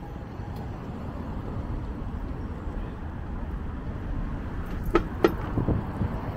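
Steady urban street noise: a low rumble of road traffic, with two sharp clicks a quarter second apart about five seconds in.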